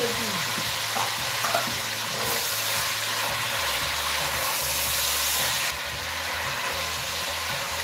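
Lamb pieces and sliced onions sizzling in an enamelled pot as they are stirred with a silicone spatula. The sizzle is steady, turning brighter and hissier for a few seconds in the middle.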